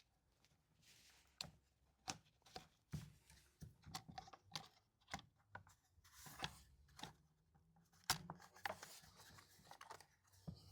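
Faint clicks, knocks and scrapes of a replacement plastic recoil starter housing being pressed and worked against a chainsaw's body, which it is not fitting over. The sharpest knock comes about eight seconds in.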